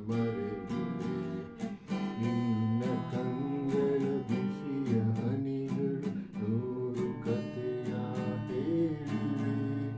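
Steel-string acoustic guitar strummed in a steady rhythm, its chords ringing between strokes.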